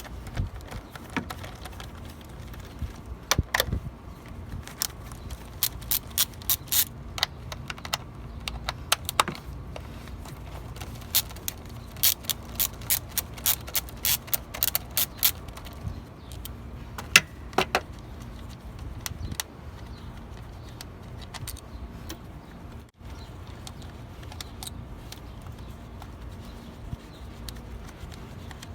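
Ratchet wrench clicking in several runs of quick, sharp clicks while loosening the hold-down bolts over the spark plug boots, with a few metal tool clinks in between.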